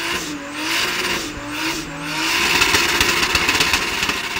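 Modified BMW E36 coupe doing a burnout: the engine is held at high revs, its note wavering up and down, while the spinning rear tyres squeal on the pavement.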